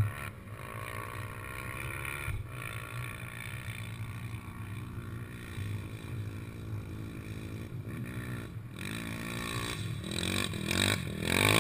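Quad (ATV) engine running steadily, then revving up and down several times near the end and getting louder.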